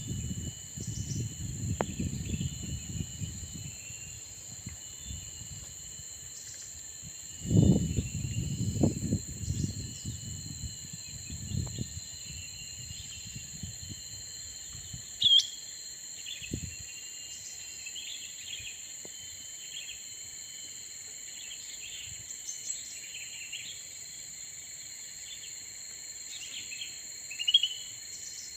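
Steady high insect drone with short, scattered bird chirps over it; two louder chirps, one near the middle and one near the end. Low rustling and handling noise in the first half, strongest about a third of the way in.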